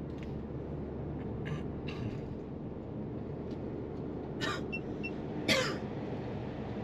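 Steady low road and engine hum inside the cabin of a SsangYong Torres with its 1.5-litre turbo petrol engine, cruising at about 50 km/h. A person clears their throat a few times, loudest about five and a half seconds in.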